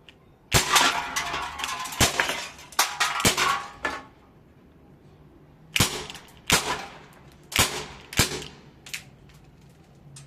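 ASG Dan Wesson full-metal airsoft revolver firing 6mm BBs: about eight sharp shots in two irregular groups, each with a short ringing tail, and two lighter clicks in between.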